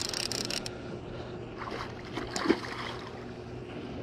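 Fishing reel clicking in a brief burst at the start while a hooked carp is played, then a single sudden thump about two and a half seconds in, over a steady low hum.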